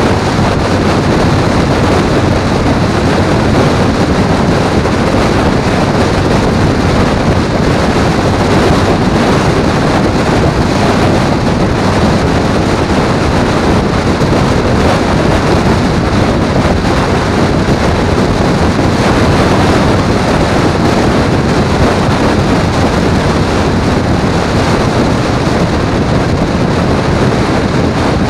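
Steady wind rush on the microphone mixed with road noise from a vehicle travelling at highway speed, loud and unchanging throughout.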